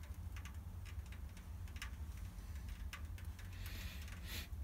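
Quiet skid steer cab while the diesel's glow plugs preheat, the engine not yet running: a faint low rumble with a few soft scattered clicks.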